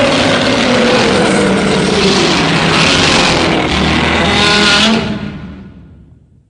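Loud, dense engine-like roar with wavering tones, fading out over its last second and a half.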